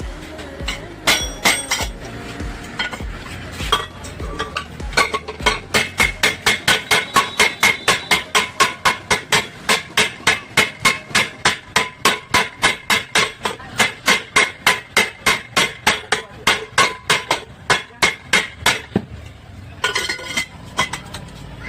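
Hammer beating on a metal pressure cooker: a few scattered blows, then a long steady run of about three to four ringing strikes a second that stops near the end.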